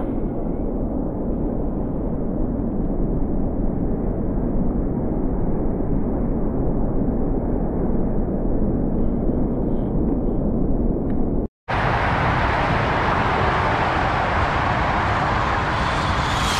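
Steady wind noise on the microphone, a low rumbling roar with no clear pitch. It cuts out for a split second about two-thirds through and comes back with more hiss.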